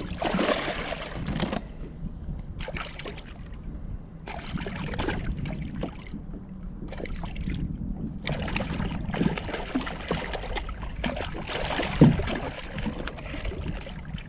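Wind buffeting the microphone on a kayak, with a steady low rumble and irregular rushing gusts every second or two, and some water sloshing around the hull.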